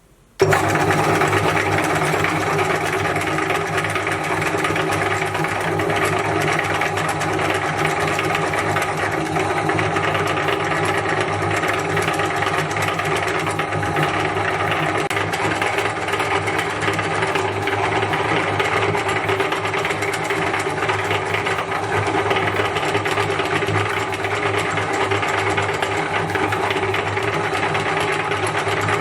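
Electric meat grinder starting abruptly about half a second in and then running steadily with a motor hum, grinding jeera biscuits.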